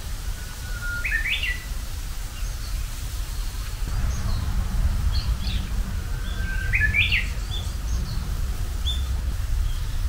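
Japanese bush warbler (uguisu) singing its "hō-hokekyo" song twice, about six seconds apart: each time a held whistle that breaks into a quick higher flourish. Faint high chirps come between the songs, over a steady low rumble.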